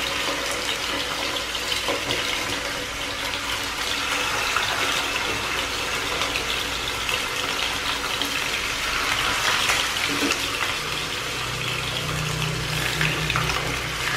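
Tuna steaks frying in oil in a nonstick pan over low heat: a steady sizzling hiss with fine crackle as the slices are laid in. A low hum joins in the last few seconds.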